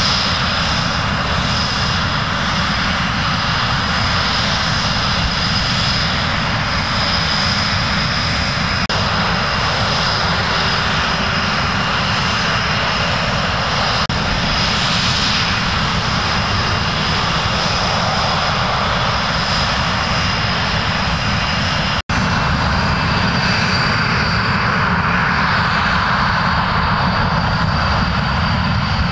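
Panavia Tornado's twin Turbo-Union RB199 turbofan engines running as the jet taxis, a steady loud jet rumble with a high turbine whine on top. About three-quarters of the way through the sound breaks off for an instant and picks up again, with more hiss.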